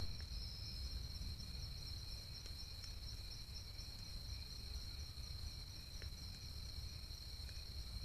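Steady nighttime insect chorus: an unbroken, high, cricket-like trill over a low background rumble, with a brief click at the very start.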